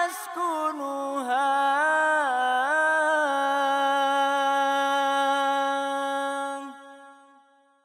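A single voice singing a sholawat (Islamic devotional song) melody without instruments: wavering, ornamented runs on a drawn-out syllable, then one long held note that fades out near the end.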